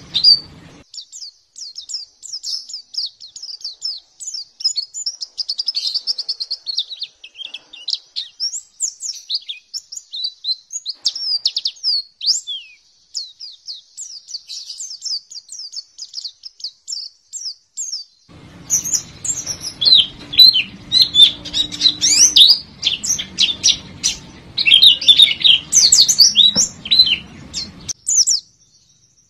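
White-eye (pleci) singing: a continuous, rapid high twittering of quick chirps and short sweeping notes. About two-thirds of the way in, the song turns louder and denser over a low hum, then cuts off abruptly shortly before the end, leaving a faint steady high whine.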